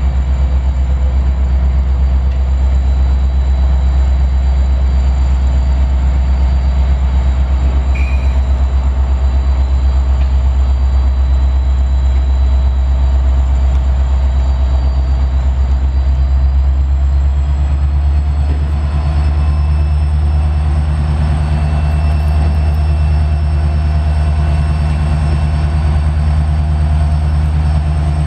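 Norfolk Southern EMD SD60E diesel locomotive No. 911 rolling slowly past, its engine running with a loud, steady low drone and a faint high whine.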